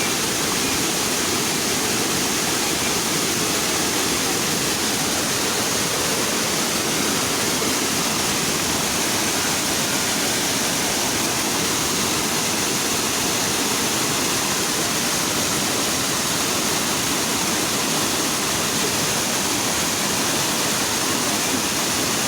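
Waterfall rushing: a steady, loud, unbroken roar of falling water.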